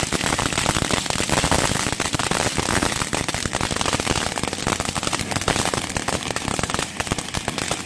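Fireworks crackling: a dense, rapid stream of sharp pops with no break.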